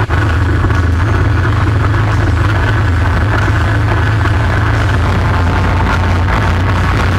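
ATV engine running steadily while riding along, a constant low drone with no change in speed.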